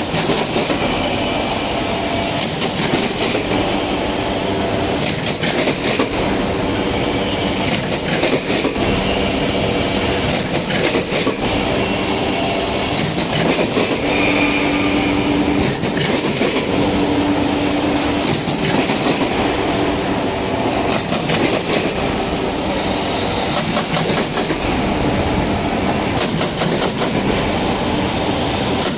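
Automatic corrugated-cardboard partition assembling machine running: a loud, continuous mechanical clatter with sharp clacks every second or two as the feeders and slotting mechanism cycle. A short steady hum joins in twice about halfway through.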